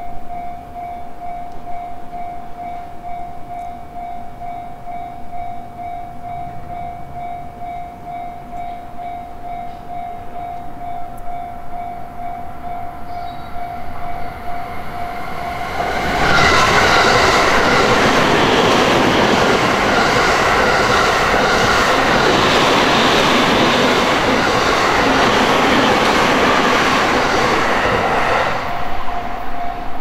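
Japanese level-crossing warning alarm ringing with an evenly repeating tone. About halfway through, a train passes close by; its much louder running noise drowns the alarm for about twelve seconds before the alarm is heard again near the end.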